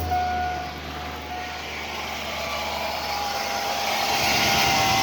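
Chevrolet Silverado 4.8-litre V8 running steadily just after a cold start, with no knock yet. A broad hiss swells about four seconds in.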